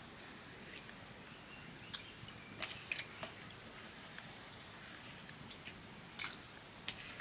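A hand working in a plastic basin: a few faint, scattered clicks and small wet sounds over a steady faint high hiss.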